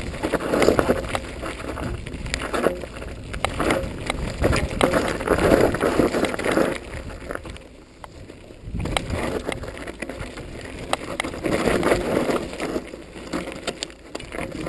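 Hardtail mountain bike on 26-inch knobby tyres rolling down a loose, dry dirt trail: tyres crunching over dirt and small stones, with the bike clattering over bumps. It goes quieter for a moment about eight seconds in.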